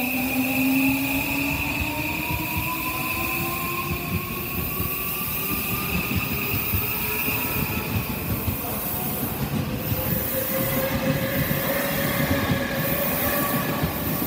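Odakyu Romancecar EXEα electric train pulling out and passing close by. Its traction motors whine in a slowly rising pitch as it gathers speed, over a steady rumble of wheels on rail.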